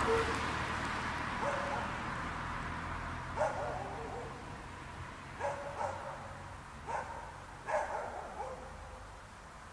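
A car driving off, its tyre and engine noise fading over the first couple of seconds, then a dog barking several times at irregular intervals, single barks and quick pairs.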